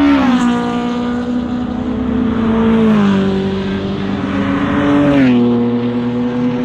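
Race cars running at speed on a circuit, their engine notes loud and steady, dropping in pitch three times as cars go by.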